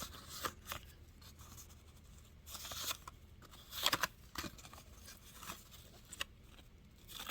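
Old photographs and paper being handled: faint rustling, sliding and light clicks, with brief louder rustles about three and four seconds in.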